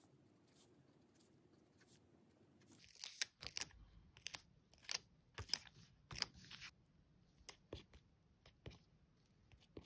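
Clear plastic stickers being peeled off their backing sheet and pressed onto a paper notebook page. From about three seconds in comes a run of short, sharp peeling and rustling sounds.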